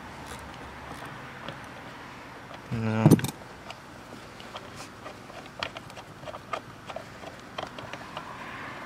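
Small, irregular metallic clicks and ticks from a door-hinge Torx bolt on an Audi A4 B7 being undone with a ratcheting ring spanner and then turned out by hand. A brief low hum about three seconds in is the loudest sound.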